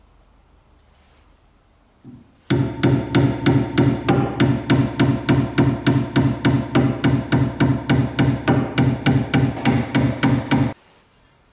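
Hammer blows in a fast, even rhythm of about four a second on the pivot pin of a rusty bread cutter's metal frame held in a vise, each blow ringing in the frame. They start about two and a half seconds in and stop abruptly about a second before the end.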